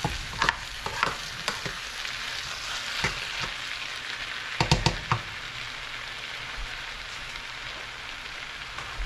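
Sliced cabbage, carrots and bell peppers sizzling in a skillet with a splash of water, stirred with a slotted spoon. The spoon knocks against the pan several times, in a quick cluster about halfway through.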